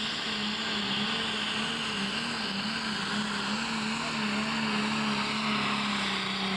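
Pro stock pulling tractor's turbocharged diesel engine at full throttle, dragging the weight sled. The engine note holds steady with slight wavers in pitch.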